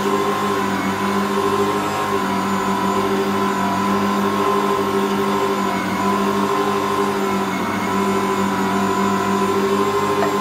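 Ankarsrum 6230 stand mixer running steadily at a constant pitch as it kneads bread dough.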